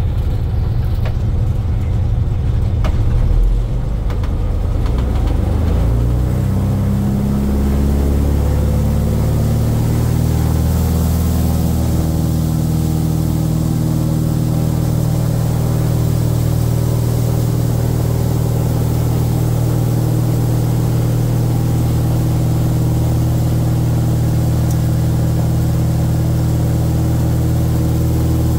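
Republic Seabee amphibian's single pusher engine heard from inside the cockpit as the plane runs on the water. After a few seconds of rough rumbling, its pitch climbs in steps for several seconds as the revs come up, then holds steady.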